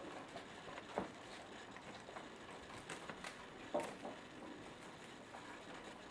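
Bengal kittens scrambling and wrestling on a plush cat tree: soft scuffling of paws and claws, with two short sharp knocks, about a second in and just before four seconds.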